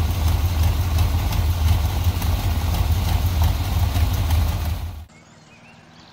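The 1968 Chevrolet C20 pickup's V8 engine idling steadily with a deep rumble. It cuts off abruptly about five seconds in, leaving faint birdsong.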